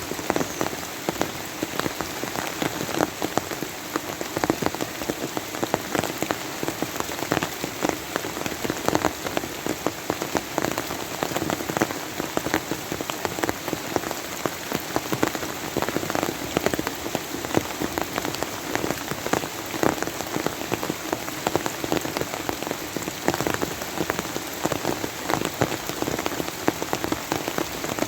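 Steady rain falling on a surface: an even hiss dotted with many separate drop hits, unchanging throughout.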